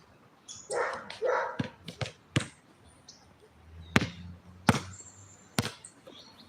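A basketball bouncing on a hard court, six sharp thuds at uneven spacing. About a second in, a dog barks twice.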